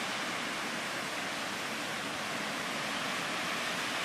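Steady, even rush of ocean surf, with no single wave breaks standing out.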